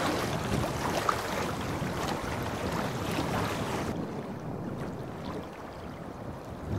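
Choppy river water splashing and rushing around a sea kayak, with some wind on the microphone. About four seconds in, the hissing drops suddenly to a quieter, duller wash of water.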